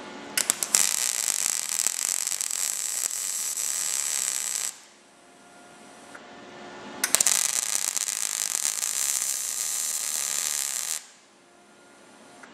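MIG welder arc crackling on thin steel sheet panel in two runs of about four seconds each, starting with a few sharp pops, with a quiet pause between. These are short filler welds closing the last gaps in a butt-welded patch seam.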